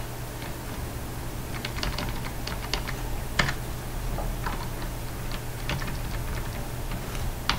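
Computer keyboard being typed on: scattered, irregular keystrokes, over a steady low hum.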